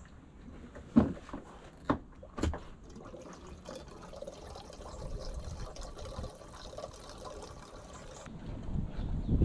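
Fuel being poured from a Stihl combination can through its black spout into a Stihl machine's fuel tank: a few sharp knocks in the first two and a half seconds as the can and spout are handled, then a steady pouring of fuel into the tank.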